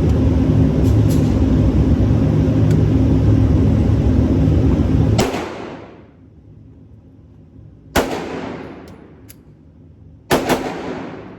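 Pistol shots from a Glock 26 9mm, each a sharp crack with an echoing tail: one about halfway through as a steady low rumble cuts off, another about two-thirds in, and a quick pair near the end.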